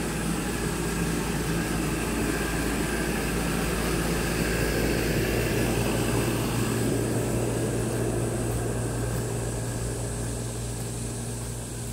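A steady mechanical drone with a low hum, swelling in the middle and easing off near the end.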